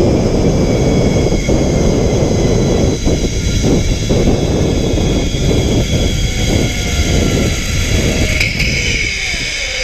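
Zipline trolley pulleys running fast along the steel cable with a steady high whine, over heavy wind rushing on the microphone. Near the end the sound thins as the rider nears the landing tower.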